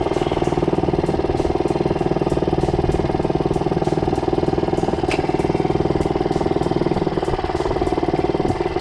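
Small 2-horsepower boat outboard motor running at a steady speed.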